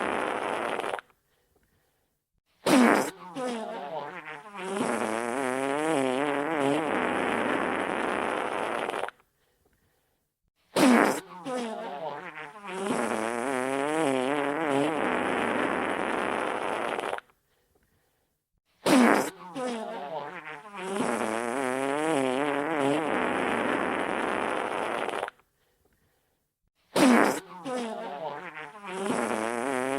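Wet fart sound effect repeating about every eight seconds. Each pass starts with a sharp burst, wavers into a sputtering flutter, then runs on as a long buzzing stretch that cuts off into a second or so of silence.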